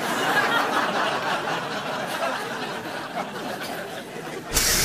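Audience laughter, fading over a few seconds. Near the end a sudden loud hiss of air from a bus.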